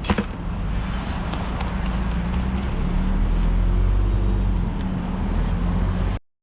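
A motor vehicle's engine running steadily with road noise, after a short knock at the very start; the sound cuts off abruptly near the end.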